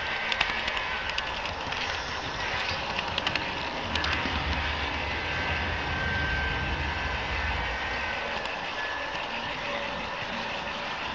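HO-scale model train running on the layout track: a steady running noise, a few sharp clicks in the first few seconds, and a low rumble from about four seconds in.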